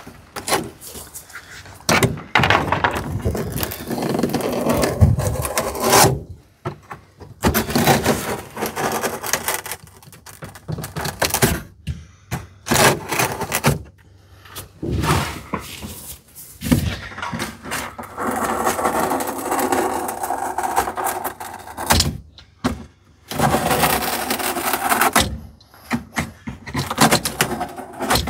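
A plastic dash cap scraping and rubbing over an old cracked truck dashboard as it is pushed, slid and lifted during a trial fit. The rubbing comes in long rough stretches with short pauses, and a few sharp knocks come through.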